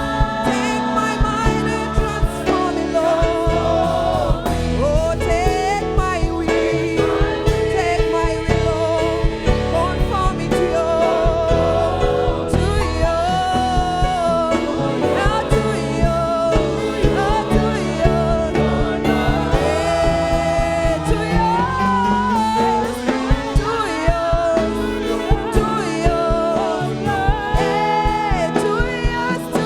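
Gospel worship music: singing over a band with keyboard chords and a steady drum beat.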